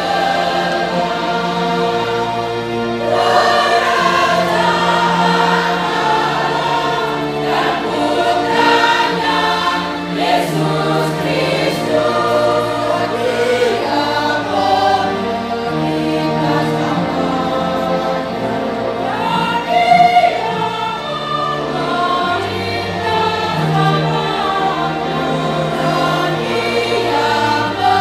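Choir singing a sacred piece together, with long held notes and a brief swell in loudness about twenty seconds in.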